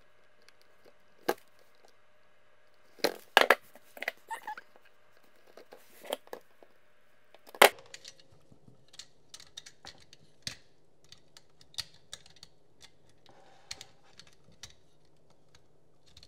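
Wire strippers at work on electrical wire: irregular sharp clicks and snips of the jaws cutting and pulling off insulation, with short rustles of the wires being handled. There is a cluster of clicks about three seconds in, the sharpest snap a little past seven seconds, then lighter ticks.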